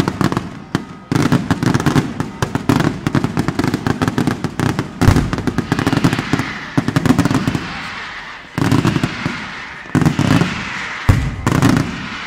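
Strings of firecrackers going off in a dense, rapid crackle of bangs. The crackle breaks off for a moment about eight seconds in, then comes back in a few shorter bursts.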